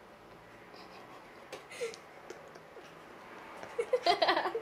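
Siamese cat licking and chewing a small cloth, with faint soft clicks. Near the end comes a short burst of louder, rapid sounds.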